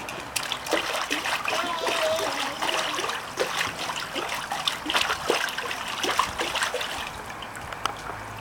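Pool water splashing and trickling in quick irregular splashes as a small child plays in it.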